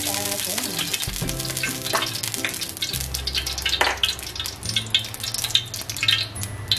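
A few spoonfuls of cooking oil sizzling and crackling as they heat in a hot stainless-steel wok.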